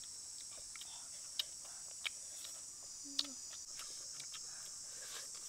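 A steady high-pitched chorus of insects, crickets or similar, with scattered sharp clicks from chewing and lip-smacking while eating by hand. Three louder clicks come in the middle, and a brief low hum follows just after 3 seconds.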